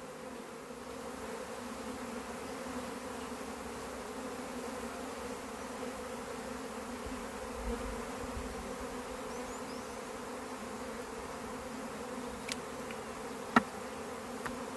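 Swarm of honey bees buzzing in flight, a steady drone of many bees as the swarm settles onto the box it was shaken into. A single sharp click comes near the end.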